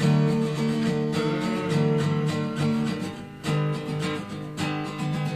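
Acoustic guitar strumming chords, with no singing.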